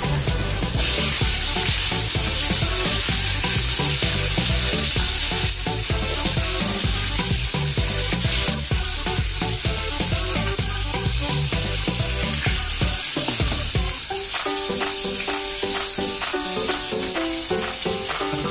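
Battered calamari rings deep-frying in a pot of hot oil: a steady sizzle with crackling. Background music with a beat plays underneath.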